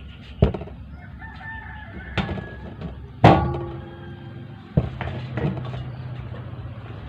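A rooster crowing, with several sharp knocks, the loudest about three seconds in.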